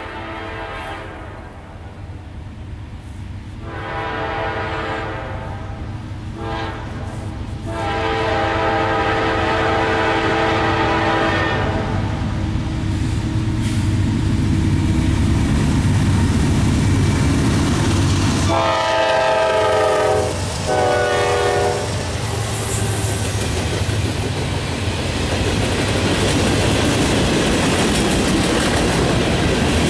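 Norfolk Southern freight train approaching with the rumble of its diesel locomotives growing louder, its horn sounding several long blasts and then two shorter ones. Freight cars then roll past with steady rushing wheel noise and clatter.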